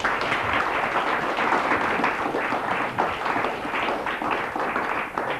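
Studio audience applauding at a steady level, a dense patter of many hands clapping.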